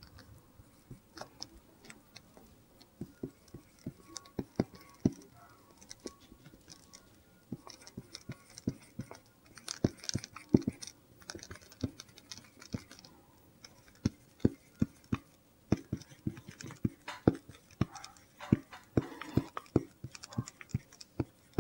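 Marker pen writing on a surface: irregular small taps and short scratchy strokes of the tip.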